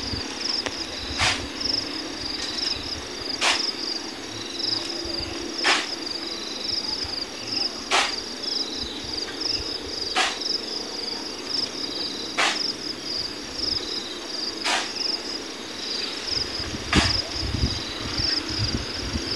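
Shovelfuls of river sand thrown by hand into a dump truck bed, a short swish about every two seconds, over the steady high chirring of insects.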